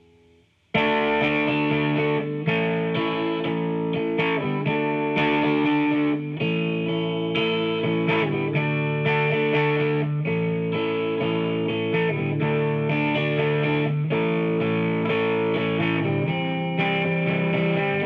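Rock music with distorted electric guitar strumming chords, cutting in abruptly under a second in and running at a steady level.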